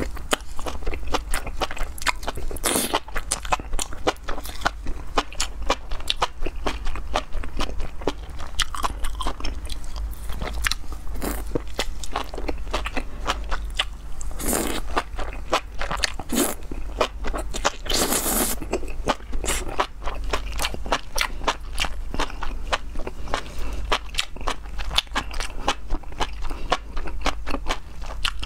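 Close-miked chewing and crunching of enoki mushrooms in spicy chilli sauce, a continuous stream of wet mouth clicks and crackles, with a few longer slurps as bundles of the strands are sucked in.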